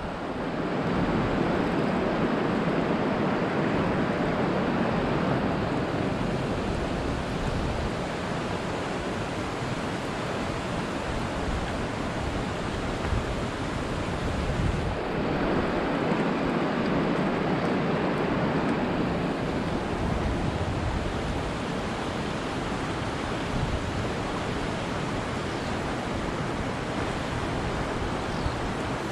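Steady rush of fast river rapids tumbling over rocks, with wind rumbling on the microphone. The tone of the rushing shifts slightly about halfway through.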